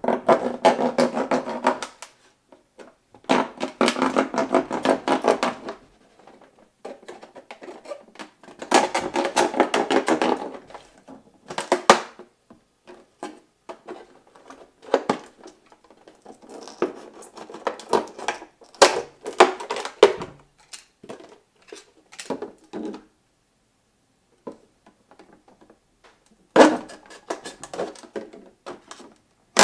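Serrated knife sawing through a juice container, in runs of quick strokes lasting about two seconds each. Between them come scattered clicks and crackles from the container being handled.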